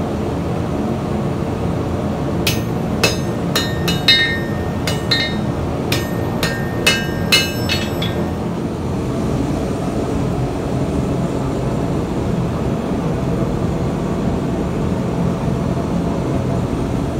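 Hand hammer striking red-hot steel on an anvil, about a dozen ringing blows at roughly two a second that stop about eight seconds in, over a steady rushing noise.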